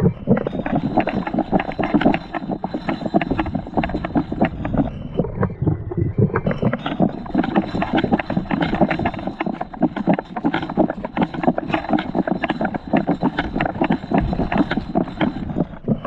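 Wind buffeting a body-worn camera's microphone, with dense, irregular rustling and knocks from the wearer moving.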